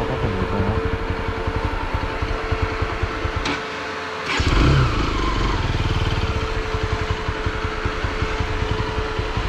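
Bajaj Pulsar NS200's single-cylinder engine running at low road speed with a steady exhaust pulse. About four seconds in, it drops away for a moment, then picks up again with a louder surge.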